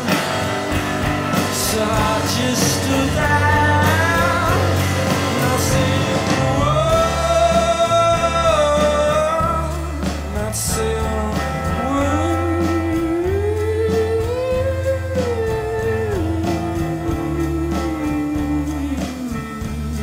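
Live band music: a drum kit with cymbal hits in the first half, electric guitar and a steady low bass under a slow, long-held wordless vocal melody.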